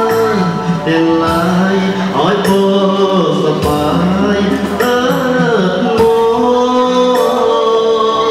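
Music with a singing voice over sustained instrumental tones, playing steadily throughout.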